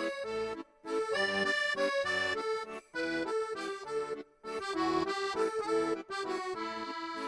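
Background music: a melodic instrumental tune moving note to note, with short breaks between phrases.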